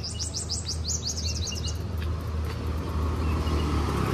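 A small bird singing a fast run of high, downward-sweeping chirps, about seven a second, for the first two seconds, over a steady low traffic rumble. A motorbike approaches and grows louder near the end.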